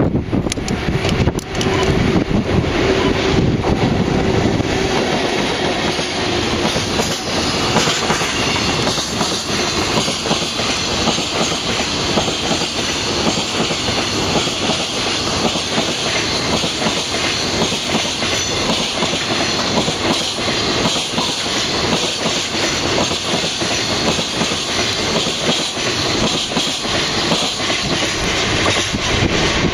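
Freight train rolling past at steady speed, its wagon wheels clattering rhythmically over the rail joints without a break.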